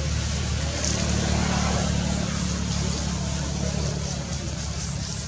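A motor engine running steadily with a low drone, a little louder about a second in.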